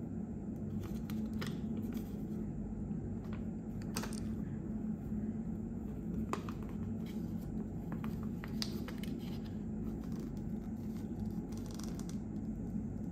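A paper quick start guide being handled, with scattered light crinkles and taps over a steady low hum.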